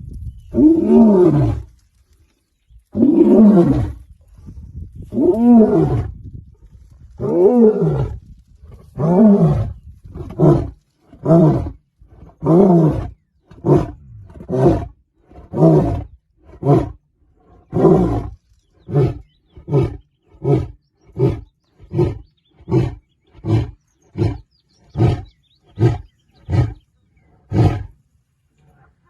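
Male lion's roaring bout: about six long, deep roars that fall in pitch, then a long run of short grunting roars that come shorter and quicker until they stop near the end.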